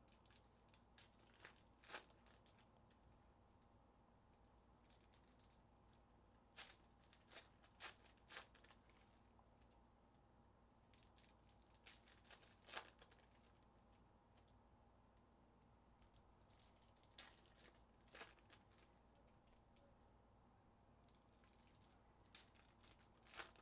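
Foil packs of 2019-20 Panini Mosaic Fast Break trading cards being torn open and handled, crinkling and tearing in short bursts of crackles several times over, against a faint steady hum.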